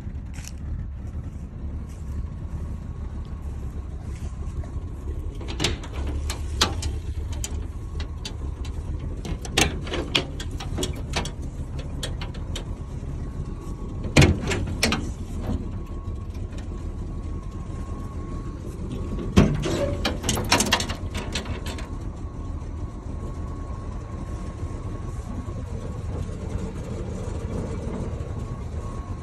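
1984 GMC K3500 brush truck idling with a steady low rumble, while its body compartment latches and metal doors are worked, giving scattered sharp clicks and knocks, the loudest about 14 and 19 seconds in.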